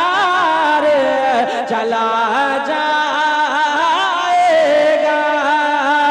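A solo male voice singing a naat into a microphone, drawing out long held notes that slide and bend in pitch.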